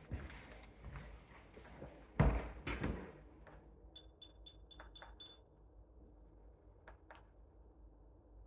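Footsteps and thumps on a tiled floor in the first three seconds, the loudest just after two seconds in. Then a quick run of about six short, high electronic beeps, followed by two faint ticks.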